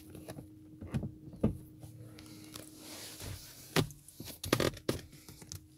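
A handful of soft knocks and clicks from hands handling a car's leather seat, the sharpest a little before and after the four-second mark, over a faint steady hum.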